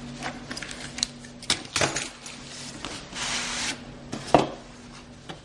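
Cardboard packaging being handled and opened: scattered sharp knocks and taps, with a scraping, sliding sound about three seconds in, over a faint steady hum.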